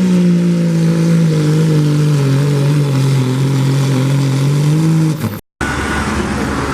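Diesel pulling truck's engine running hard at high revs, its pitch slowly sagging over the first few seconds and then holding. About five seconds in it cuts off abruptly and gives way to a rougher, noisier engine sound.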